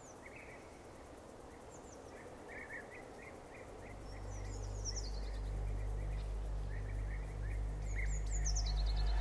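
Songbirds chirping in woodland, short repeated calls throughout. From about four seconds in, a low steady drone fades in and swells toward the end.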